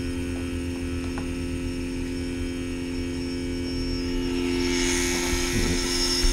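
Small electric motor and its pulse circuit running with a steady hum, several held tones over a low rumble; a hiss swells up near the end.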